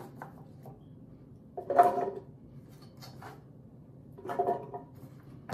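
A few soft knocks and clinks of kitchen utensils and dishes during food preparation, with a low steady hum underneath.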